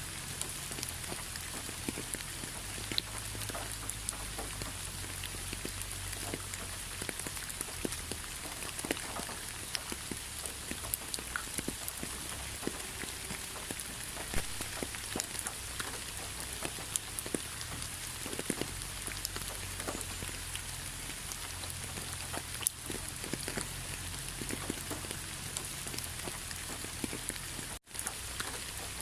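Steady rain: an even hiss with many individual drops pattering and ticking. It cuts out for an instant about a second before the end, then resumes.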